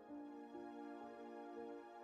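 Quiet, slow background music of soft sustained notes.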